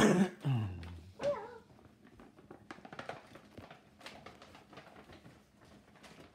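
A pet's vocal cry falling steeply in pitch, then a second short, wavering call about a second later, followed by light rustling and clicking as presents are handled.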